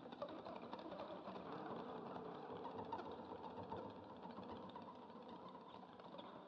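A faint, steady, machine-like drone with no distinct events, which fades out shortly after.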